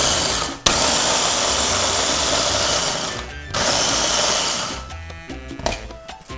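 Small electric food chopper with a press-down motor head pulsed to chop raw salsa verde ingredients: steady motor whirr that stops briefly about half a second in, runs again for about two and a half seconds, pauses, then runs once more before winding down about five seconds in. Background music plays underneath and is left alone near the end.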